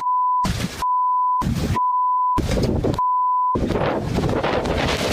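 Censor bleeps: a steady 1 kHz tone sounds four times in quick succession, each replacing the original audio, with a rushing noise in the gaps. Near the end, a steady rushing noise carries on without further bleeps.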